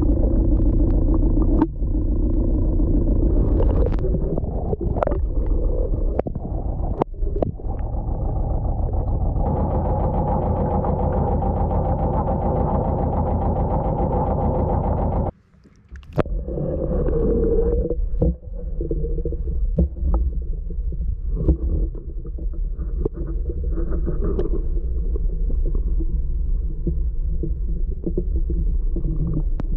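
Steady low rumble of a boat's engine running, with a fine, fast throb. It breaks off abruptly for under a second about fifteen seconds in, with a few light knocks along the way.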